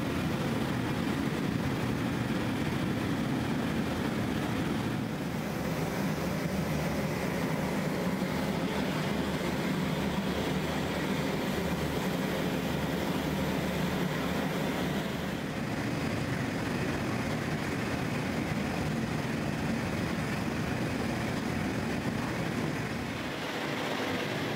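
Open gas burners and a hand-held gas lance firing on a rotating steel mould of a rotational-moulding machine, heating it to melt the plastic inside into a water tank: a steady, low rushing noise with no break.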